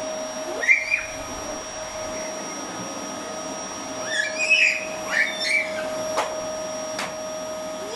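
Canister vacuum cleaner running steadily with a constant whine while a toddler pushes its floor nozzle across the carpet. A small child's high squeals and babble come in about a second in and again midway, and two sharp clicks sound near the end.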